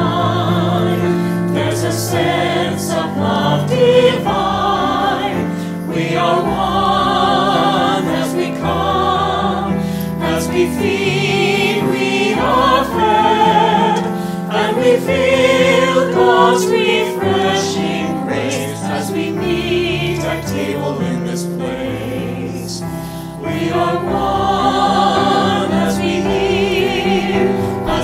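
A small mixed choir of men's and women's voices singing a hymn a cappella in several parts, with sustained notes and vibrato. The singers are recorded separately and mixed together as a virtual choir.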